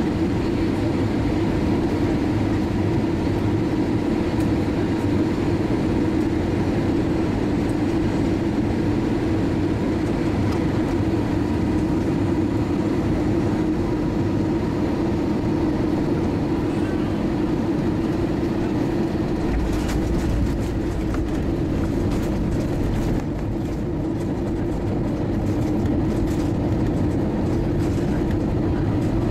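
Cabin noise of an Airbus A320-232 heard from a window seat beside its IAE V2500 engine: a loud steady hum of engines and airflow on final approach. About two-thirds of the way through a deeper rumble with light rattling sets in as the wheels roll on the runway after touchdown.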